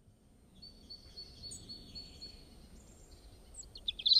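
Songbird singing: a run of high, thin repeated notes that starts faintly, then a louder burst of quick chirps near the end.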